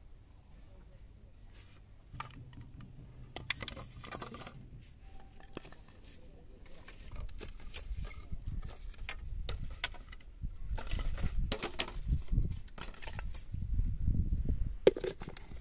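Handling noise of plastic bottles and bamboo sticks being laid down on dry ground: scattered light clicks, knocks and rustles that grow busier after the first couple of seconds, over a low rumble that builds in the second half.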